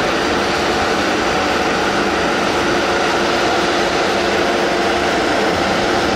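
Isuzu Giga road sweeper truck running, a loud steady machine drone with a constant low hum, while its rear debris hopper is raised hydraulically for tipping.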